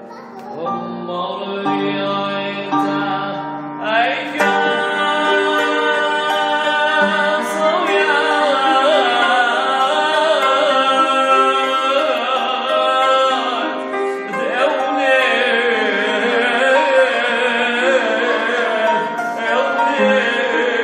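A man's voice singing a church hymn into a microphone in long held, wavering notes, over a sustained instrumental accompaniment.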